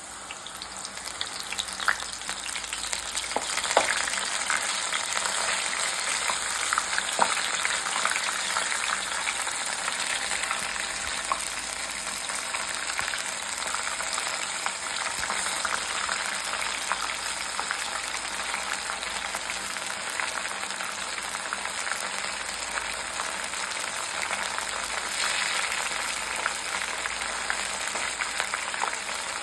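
Corn kernels coated in corn flour and maida batter deep-frying in hot oil, with a steady crackling sizzle. The sizzle builds over the first few seconds as the pieces go in, with a few sharp clicks along the way.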